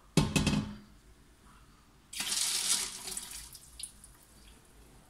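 Water poured into a fish bowl: a short pour of under a second, about two seconds in. It follows a brief knock right at the start.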